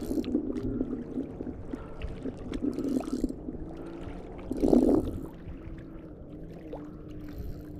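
Water splashing as a hooked spotted bass is fought in, with one louder splash about five seconds in. Rapid clicking, mostly in the first three seconds, and a steady low hum run underneath.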